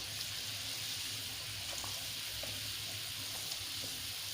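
Fish curry simmering in its gravy on the stove: a faint, steady hiss with a low hum under it and a few faint ticks.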